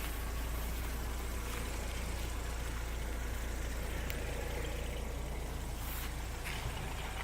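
BMW M40 four-cylinder engine of a 1991 E36 318i idling steadily, a low even rumble, with a few light clicks.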